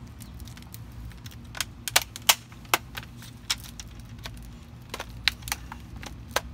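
A hammer striking the shattered screen of a Toshiba laptop again and again in short strokes: sharp, irregular knocks, a couple a second, the loudest few coming about two to three seconds in.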